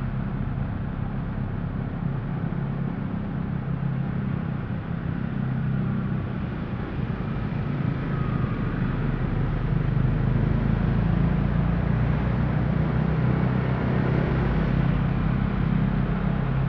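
Steady engine hum and road noise of a vehicle driving slowly in city street traffic, with motorbikes around it. A little louder from about halfway through.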